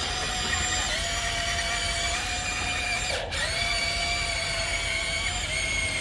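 Electric motors of a Huina RC excavator whining steadily as it drives, with a brief dip in the whine about three seconds in.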